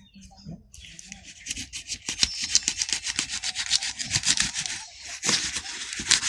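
An axe blade scraped rapidly back and forth over a plastic-wrapped cardboard parcel, a fast run of scraping strokes starting about a second in.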